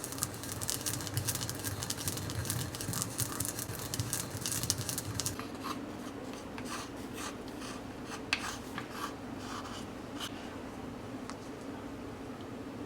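Rapid scratching and clicking, dense for about five seconds and then thinning to scattered clicks, over a faint steady hum.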